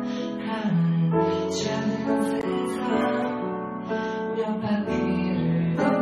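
Piano accompaniment with a woman singing along; the flute is not playing.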